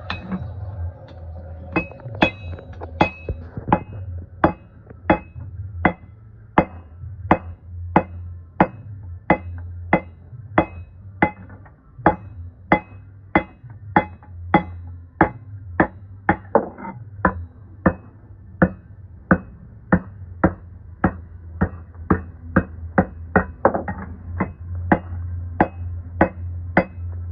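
Blacksmith's hand hammer striking a forged metal socket handle on the anvil in a steady rhythm, smoothing it. Each blow is a sharp ringing clink, about one and a half a second, quickening near the end, over a steady low hum.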